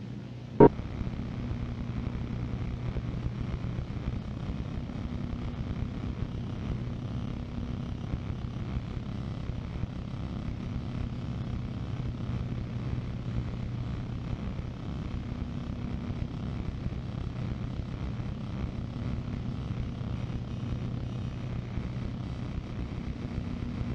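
A sharp click about half a second in, then a steady low rumbling drone with a hum underneath.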